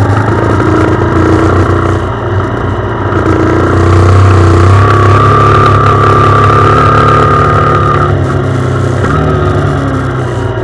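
Sinnis Apache trail motorcycle's engine running steadily at fairly low revs, its pitch stepping up and down a few times as the throttle changes.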